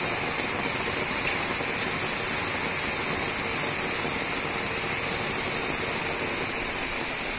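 Heavy rain falling steadily on a flat concrete rooftop, an even hiss of drops splashing on the wet, puddled surface with a few separate drop ticks.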